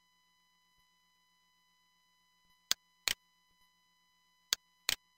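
Computer mouse clicks: four sharp clicks in two quick pairs, about two and a half and four and a half seconds in.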